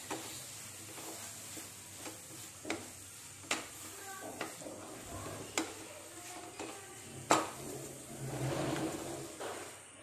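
Wooden spatula stirring mushrooms and coconut masala in a non-stick kadai, knocking and scraping against the pan about once a second over a soft sizzle. The stirring gets busier near the end.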